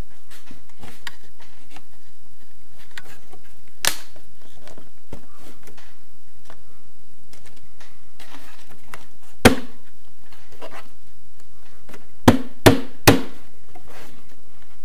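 A trim strip being pressed and knocked into place along the edge of a panelled ceiling by hand, with light rustling and handling noise. There are sharp knocks: one about four seconds in, a loud one near the middle, then three quick ones in a row near the end.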